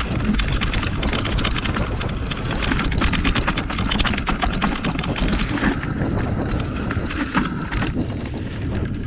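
Surly Krampus rigid 29+ mountain bike ridden over dirt singletrack: tyre rolling noise with a steady patter of rattles and clicks from the bike on the rough trail, and wind on the microphone.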